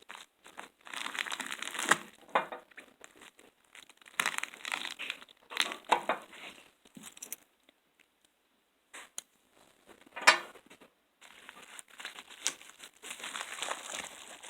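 Packaging being opened by hand: irregular crinkling, rustling and tearing with short pauses, and one sharp snap about ten seconds in.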